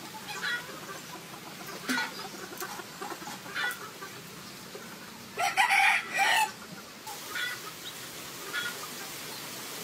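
A rooster crowing once, a little past halfway through, the loudest sound here, with short chicken clucks scattered before and after it.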